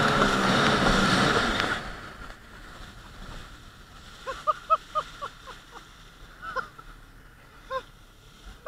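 Jet ski engine running at speed with rushing spray, dropping away sharply about two seconds in. Quieter water sloshing and hissing follow, with a few short high chirps scattered through the second half.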